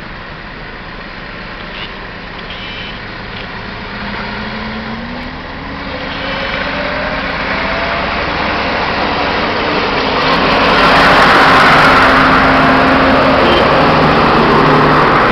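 Diesel farm tractors driving past one after another. The engine pitch rises partway through, and the sound grows steadily louder as the tractors come close, peaking near the end.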